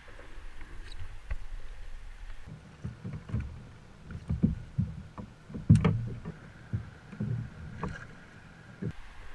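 Irregular dull thumps and knocks on a plastic sit-on-top fishing kayak as catch and gear are handled on board, the loudest about six seconds in. Light wind and water noise underneath.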